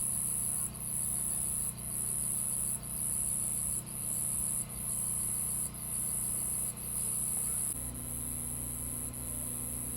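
Insects, crickets or similar, trilling loudly and high-pitched, the trill breaking briefly about once a second. A steady low hum runs underneath.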